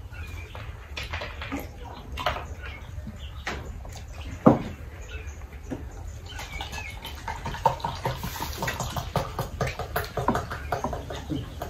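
Mealtime sounds of people eating by hand: chewing and lip-smacking with small clicks of plates, cups and spoons, and one sharp knock on the table about four and a half seconds in.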